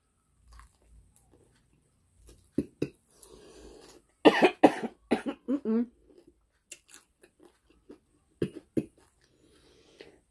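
A woman coughing in short fits, several coughs a couple of seconds in, a cluster in the middle and two more near the end, after a mouthful of fried chicken went down the wrong way, with faint chewing between fits.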